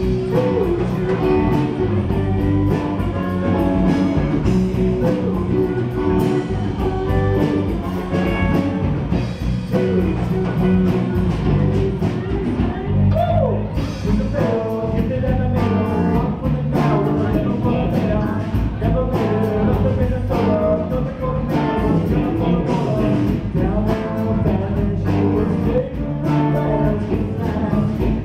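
Live rock band playing: electric guitars and a drum kit keeping a steady beat, with a lead singer at the microphone.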